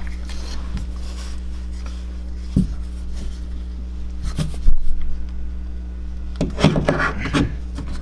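Hands-on plumbing work under a sink: pipe and tools being handled, with scattered knocks and rubbing, one loud sharp clack about halfway through, and a flurry of rattling near the end, over a steady low hum.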